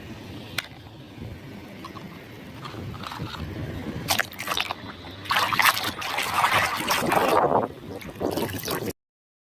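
Water sloshing and splashing as a muddy toy vehicle is washed by hand, with a few small knocks of the plastic toy. The splashing grows louder in the second half, then the sound cuts off abruptly near the end.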